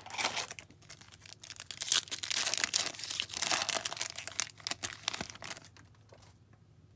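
Foil trading-card pack wrapper being torn open and crinkled by hand: a dense crackle, loudest in the middle, that dies away about five and a half seconds in.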